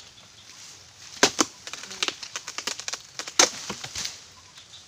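Oil palm harvesting chisel (dodos) on a long pole being jabbed into palm frond bases to cut them away. It makes a run of sharp chopping knocks with crackling of splitting fronds, starting about a second in, with the loudest strikes near the start of the run and about three and a half seconds in.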